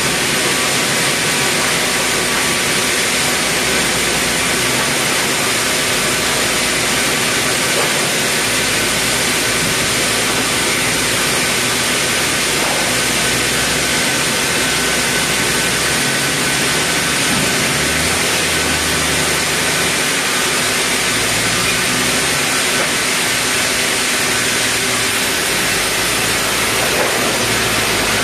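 Loud, steady din of sawmill machinery: a large log band saw (gergaji selendang) running without a break.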